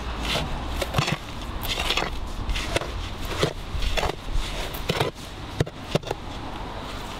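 Shovel blade scraping and chopping through a wet sand-and-cement mortar mix in a plastic barrel, in repeated irregular strokes.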